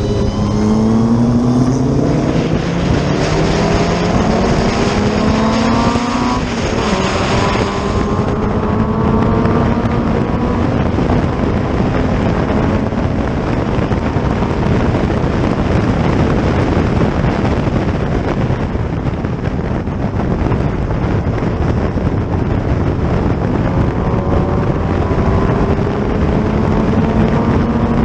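Racing car engine accelerating hard, its note climbing, then dropping with an upshift about six seconds in and running on at speed under heavy wind rush; the note climbs again near the end.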